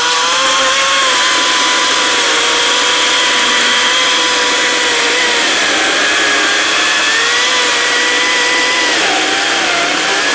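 Echo 58V battery-powered chainsaw running at full speed with a steady high whine as it cuts into a log. Its pitch wavers under load and sags noticeably about nine seconds in.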